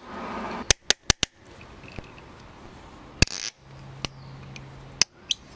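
Sharp cracks and pops from a hand tap cutting an M10 × 1.5 thread in 3D-printed titanium, the tap binding and letting go as it is turned in small steps. There are about four quick cracks in the first second and a half, a longer crack a little past three seconds and two more near the end. The sound is that of a tap under heavy load, close to snapping.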